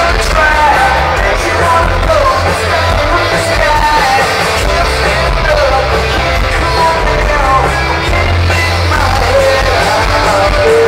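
Live rock band playing loud with electric guitars, drums and a sung lead vocal, over a heavy, steady low end.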